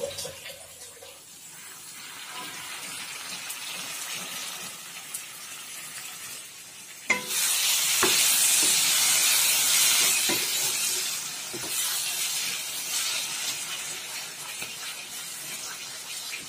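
Tomatoes and masala frying in a kadai: a soft sizzle while the pan is covered, then a sharp clack about seven seconds in, after which the sizzling grows much louder. A spatula stirs and knocks against the pan a few times, and the sizzle eases off toward the end.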